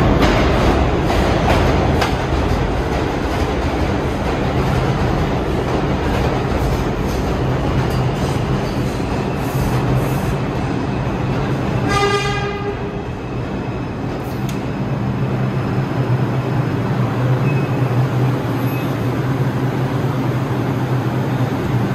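New York City subway train in the station: clattering in the first couple of seconds, then a steady hum. About twelve seconds in, the train's horn gives one short blast.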